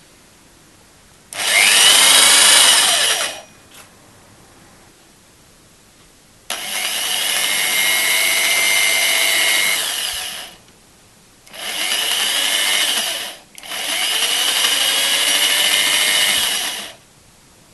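Electric drill with a socket bit running in four bursts of a few seconds each, the last two nearly back to back, driving nuts down the long threaded bolts that clamp the hydrogen cell's plate stack.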